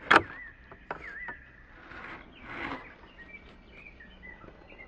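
A galvanised steel barrel bolt on a wooden mesh door slides open with one sharp metal clack, followed by a few lighter clicks, then a soft rustle about two seconds in. Small birds chirp throughout.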